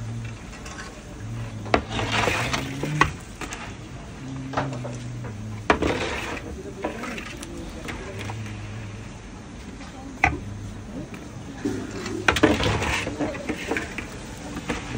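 Metal skimmer and tongs clinking and scraping against an aluminium kadai as jalebis are turned and lifted from the frying oil. There are sharp clicks every second or few, with louder scraping spells about two, six and twelve seconds in.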